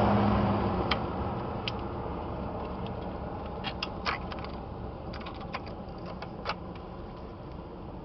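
Scattered light clicks and taps of metal fittings and hoses as an old mechanical fuel pump, with its hoses, is worked loose by hand and pulled off the engine. A loud rushing noise fades away in the first second or so.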